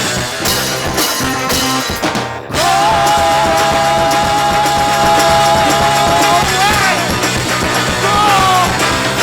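Live rock band playing with a steady drum beat. The sound drops out briefly about two and a half seconds in, then the full band comes back under a long held high note, and another note is held near the end.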